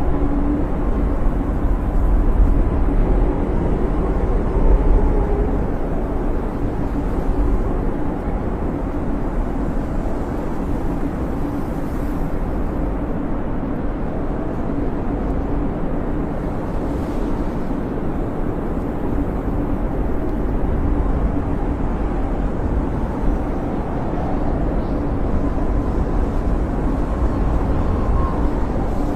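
Blizzard wind rushing steadily with a low rumble and a faint whistle, swelling and easing slowly.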